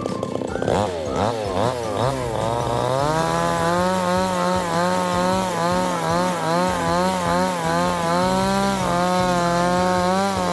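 Two-stroke chainsaw revved up and down several times, then held at full throttle with its pitch wavering slightly as it cuts through wood. It drops off right at the end.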